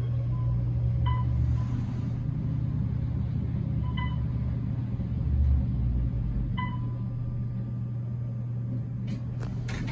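Inside the cab of a 2006 Otis traction elevator travelling between floors: a steady low rumble and hum of the ride. Three short electronic beeps sound, about one, four and six and a half seconds in.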